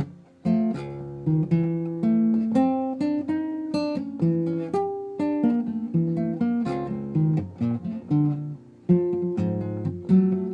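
Acoustic guitar music: a run of plucked notes and chords, each struck sharply and left to ring out.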